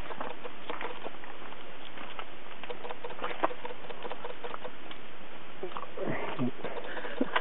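Footsteps walking on a dirt path: faint, irregular crunches and ticks over a steady hiss of outdoor background noise.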